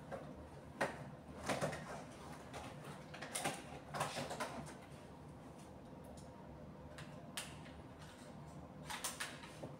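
Scattered rustles and short mechanical clicks of a hand-held staple gun being unwrapped and handled, its magazine opened and loaded with staples.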